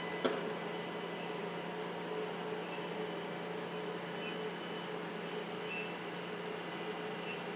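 Steady hum of lab assembly equipment, with a single sharp click about a quarter second in.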